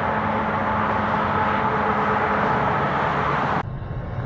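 A steady outdoor noise with a faint hum cuts off suddenly near the end. It gives way to the quieter, growing low rumble of an approaching Amtrak passenger train.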